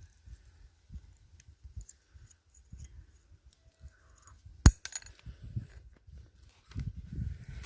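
Small metal parts handled by hand: light clinks and rustling, with one sharp click a little under five seconds in, as a bicycle disc brake pad is fitted back into its holder.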